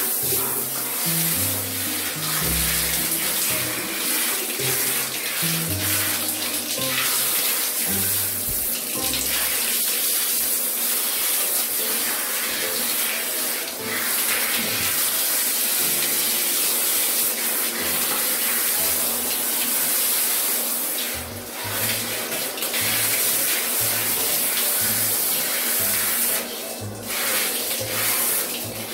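Handheld shower head spraying water onto a Siberian husky's coat, a steady hiss of running water. Comic background music plays underneath, with a bass line.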